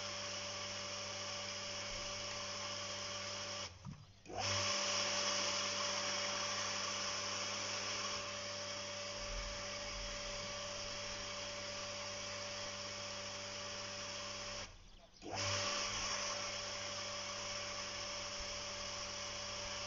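Electric garden pump (house water booster) running with a steady motor hum and hiss, pumping the system back up to pressure. It cuts out briefly twice, about 4 seconds and 15 seconds in, and starts again a little louder each time.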